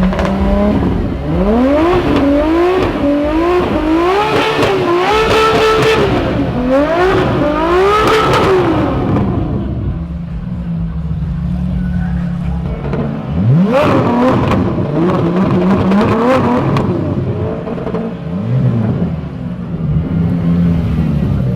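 Ferrari F12 Berlinetta's V12 being revved hard in a quick series of rising and falling blips for the first nine seconds or so, then dropping back to idle. A second run of revs comes about halfway through, and a smaller blip follows near the end, each settling back to idle.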